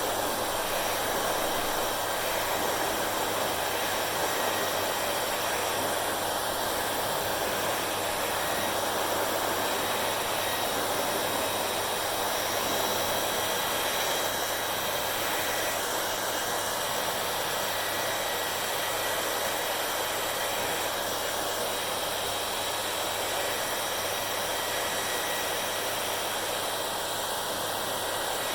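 Hair dryer running steadily: an even rush of blown air with a faint high motor whine and a low hum underneath.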